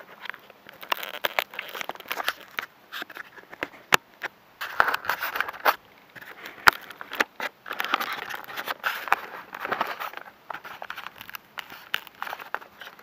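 Close handling noise on a small camera's microphone: irregular crackles, clicks and scrapes as fingers and grass brush against it, with a few sharp knocks.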